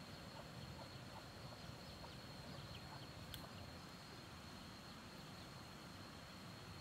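Faint forest ambience with a steady high-pitched insect whine, and a single light click about three seconds in.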